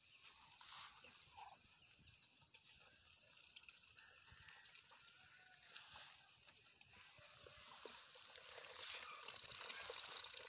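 Near silence, with the faint wet pecking and dabbling of muscovy ducks feeding from a metal bowl of mash and cashew fruit, a little louder near the end.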